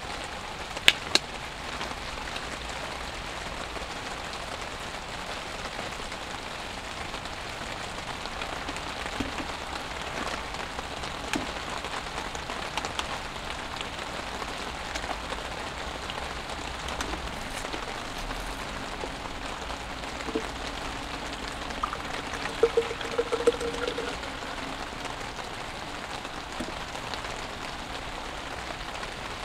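Steady rain falling, an even hiss of drops, with two sharp clicks about a second in and a few small knocks and a short pitched sound near the end from things being handled.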